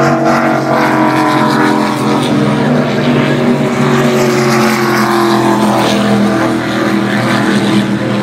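Offshore racing powerboat engines running at high speed as boats go past, a steady multi-engine drone with the pitch sliding down as each boat passes, twice.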